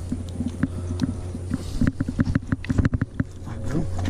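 Fillet knife working through a tripletail's tough, scaly skin: a run of short clicks and scrapes that comes faster from about halfway through, over a steady low hum.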